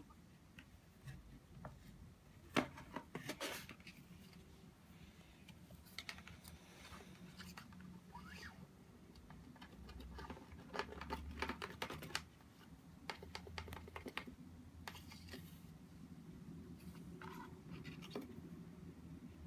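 Cat-teaser stick scraping and tapping against a cardboard play box as it is worked in and out of the box's holes: irregular scratches and clicks in scattered bursts, loudest about three seconds in.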